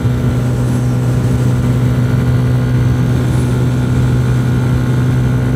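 Benelli 150S single-cylinder motorcycle engine running at a steady cruising speed, its note holding one pitch, heard from a microphone inside a full-face helmet.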